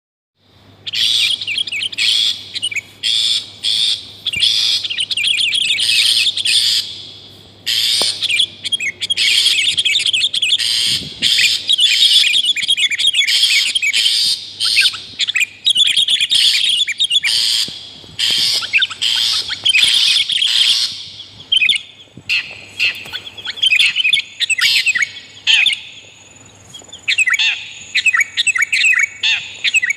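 Bird-lure recording of long-tailed shrike and sooty-headed bulbul calling loudly, a dense run of rapid, harsh chattering and chirping phrases that thins into shorter bursts after about 20 seconds. A faint steady low hum lies underneath.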